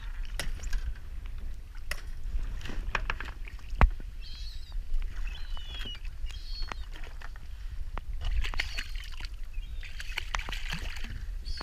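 Water sloshing and splashing at the boat's side as a gull struggles with a hooked fish at the surface, with scattered knocks and short high squeaks now and then over a low rumble.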